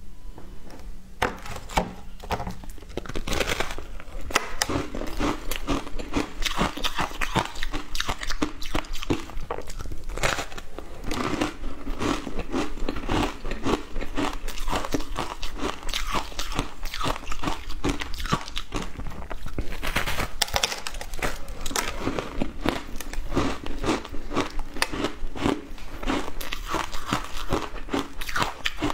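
Close-miked biting and chewing of a block of frozen shaved ice coated in milk powder: a steady run of crisp crunches as the ice is bitten off and ground between the teeth.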